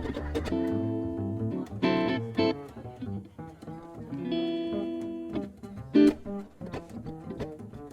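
Mandolin, guitar and bass playing a swing jazz tune: plucked chords ring out over a walking line of bass notes. Two chords are held for about a second each, near the start and about four seconds in, and a sharp accented hit stands out about six seconds in.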